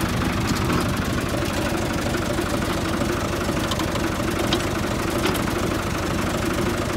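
Farm tractor's diesel engine idling steadily with an even, fast beat, with a few faint clicks in the middle.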